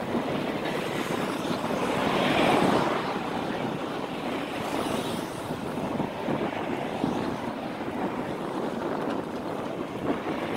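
Steady wind rushing over the microphone of a camera riding on a moving bicycle, swelling briefly about two seconds in.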